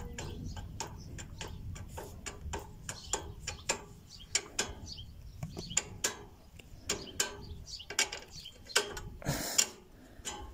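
Irregular metallic clicks and light knocks, a few a second, as the linkage rod of a homemade potato digger is worked off its bolt and bushing, with a louder, longer clank near the end.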